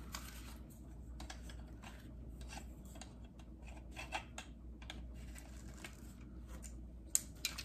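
Hard plastic parts of a toy gel ball blaster being handled as its orange muzzle tip is fitted onto the barrel: faint rubbing and small clicks, with two sharper clicks near the end.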